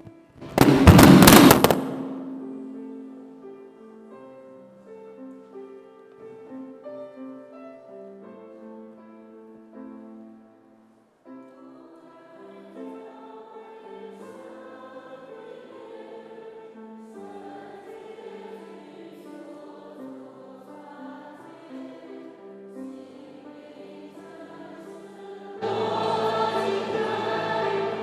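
A loud burst of noise about half a second in, then a keyboard plays the hymn's introduction in held, stepped notes. Near the end the congregation comes in singing the hymn together, noticeably louder.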